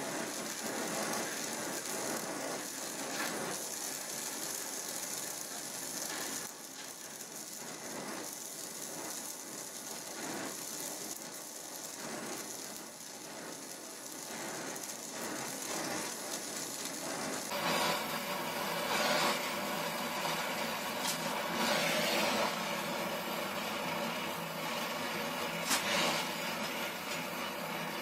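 Donmet 132A gas welding torch flame hissing steadily while a pinhole leak in a steel water pipe is being welded with filler wire, with a few sharp pops. The hiss grows louder about two thirds of the way through.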